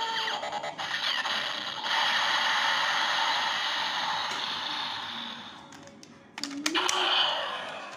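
Sound effects from a DX Zetsumeriser toy belt's speaker, a loud mechanical-sounding whir that fades off. A little after six seconds come a couple of sharp plastic clicks as the Assault Wolf Progrise Key is handled, and then a shorter burst of sound.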